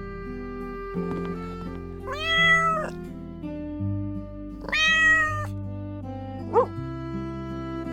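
A kitten meowing twice, two drawn-out meows about two and a half seconds apart, over gentle background music, with a short rising squeak shortly after the second.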